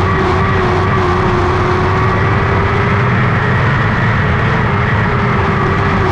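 Lightning sprint car's engine running at near-constant revs: one steady engine note that wavers only slightly over a heavy rumble.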